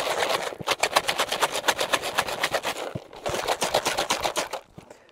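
Damp feeder groundbait with pellets being mixed vigorously in a bucket: quick rustling, crunching strokes, several a second, with a short break about three seconds in.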